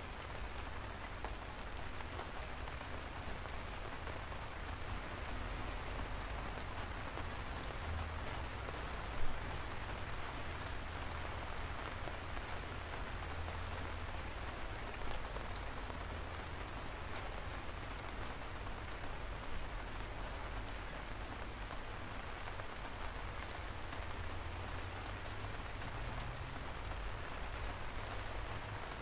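Steady rain, with scattered sharp drop ticks and one louder tap about nine seconds in, over a low rumble.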